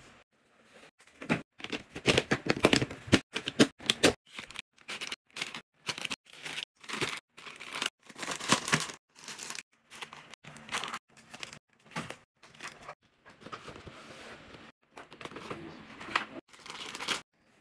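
Plastic packaging and disposable diapers crinkling and rustling in quick, irregular bursts as they are handled and packed into plastic storage bins.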